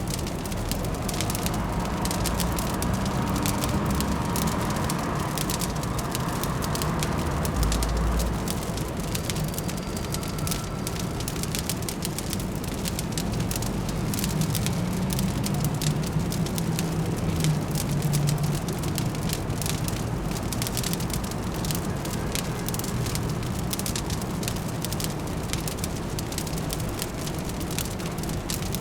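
Wood fire crackling with dense, irregular pops over a steady low hum of distant city traffic.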